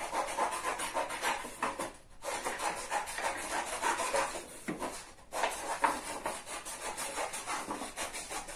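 Scissors cutting through coloured paper: a continuous run of crisp snipping and paper rustling, broken by two short pauses about two and five seconds in.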